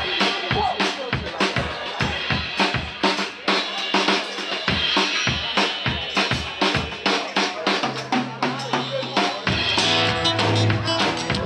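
Drum kit played in a fast, busy break of rapid rhythmic hits. Acoustic guitar comes back in with sustained strummed chords about nine or ten seconds in.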